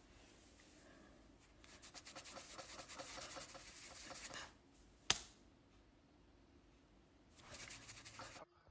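Faint crackling and rubbing of fingers picking at skin close to the phone's microphone, from about two seconds in to four and a half, then a single sharp click about five seconds in and another short rustle near the end.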